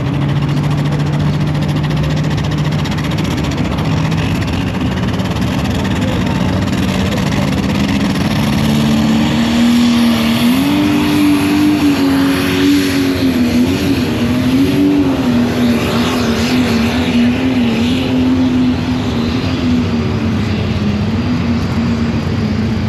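A pulling tractor's engine running loud and steady. About ten seconds in its pitch steps up, then wavers up and down as it revs.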